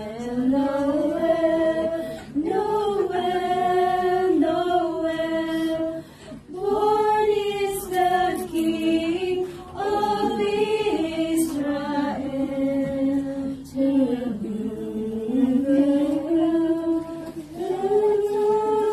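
A small group of women singing together a cappella in long sustained phrases, with brief pauses for breath about six and fourteen seconds in.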